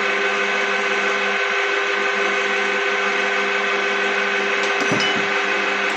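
Small metal lathe running steadily with a motor and gear whine, spinning a piston in its jig; it is switched off near the end and starts to wind down.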